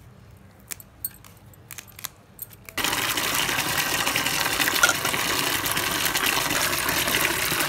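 Electric kitchen mixer grinder starting abruptly about three seconds in and running steadily, grinding the mint, garlic and dried red chilli karam; a few light clicks before it starts.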